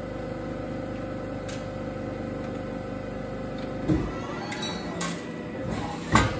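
Amada APX 103 CNC hydraulic press brake humming steadily while a thin aluminium sheet is folded, with knocks and metallic clanks about four, five and six seconds in, the last the loudest, from the machine's stroke and the sheet being handled against the tooling.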